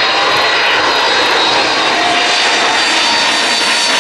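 Boeing 757 airliner's twin jet engines on low landing approach: a loud, steady rush of engine noise with a thin high whine.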